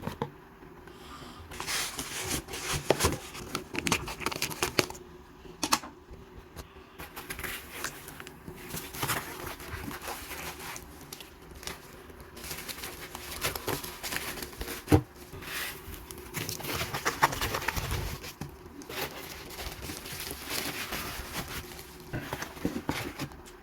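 Plastic wrappers and cardboard cosmetics packaging being handled by hand: irregular crinkling, rustling and tearing with scattered sharp clicks, one sharper click about fifteen seconds in.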